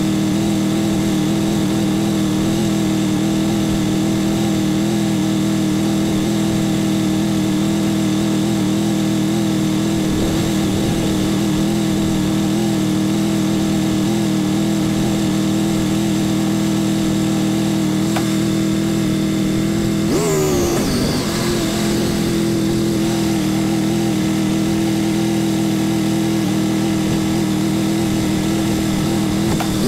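Motorcycle engine running at steady revs, with a brief dip in pitch that recovers about two-thirds of the way through.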